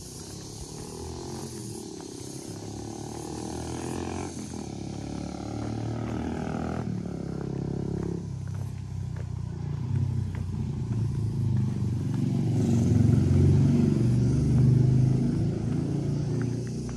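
A vehicle engine running and growing steadily louder, loudest about thirteen to fifteen seconds in, then easing off.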